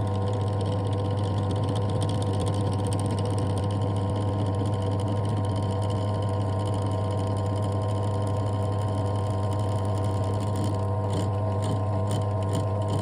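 Electric drill running steadily with a pencil chucked as the bit, pressed against acrylic: a constant motor hum with a low drone. Near the end, short scratchy ticks join in as the pencil grinds itself down rather than piercing the sheet.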